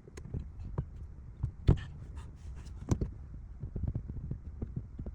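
Irregular light clicks and knocks over a steady low rumble, with two sharper knocks about a second and a half in and about three seconds in.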